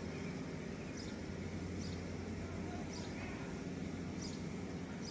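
A vehicle engine running steadily, pulling on a tree that has not yet given way. Faint bird chirps come and go about once a second.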